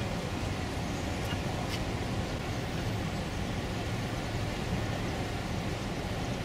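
Steady low rumble of a large container ship's engine as the ship passes on the river, even in level throughout.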